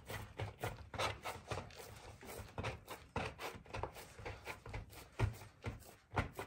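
Hands pressing and pinching soft pie dough shut around the edges of a filled pie, a run of irregular soft rubbing and tapping noises, with two sharper knocks about five and six seconds in.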